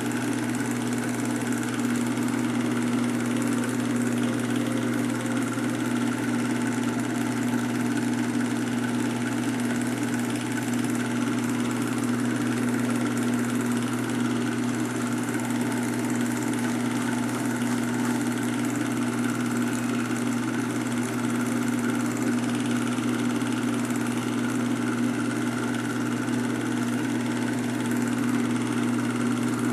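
A film projector running: a steady mechanical hum with a low drone that does not change.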